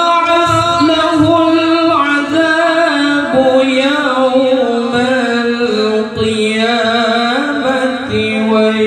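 A young male qari reciting the Quran in melodic tilawah style, amplified through a handheld microphone, holding long ornamented notes whose pitch steps gradually lower.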